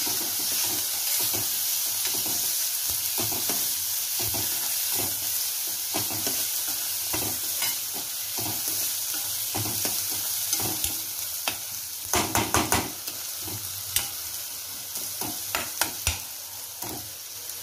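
Chopped onions frying gently in oil in a pan with a steady sizzle, while a metal spatula stirs and scrapes them in quick repeated strokes. A few louder clicks and knocks of the spatula on the pan come in the later part.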